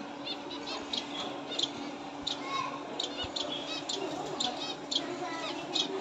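Caged finches chirping: short, high calls, a couple each second, over a low steady hum.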